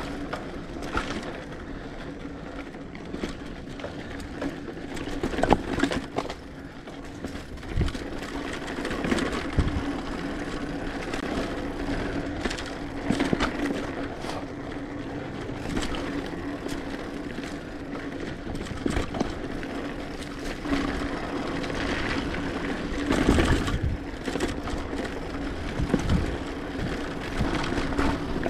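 Mountain bike being ridden over a rough dirt trail: tyres crunching on the ground, with the bike rattling and knocking over bumps, and a steady hum underneath.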